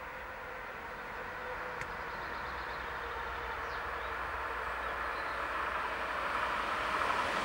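Electric Alstom Regio-Citadis tram-train running on a main-line track, a steady rolling noise that grows louder as it approaches.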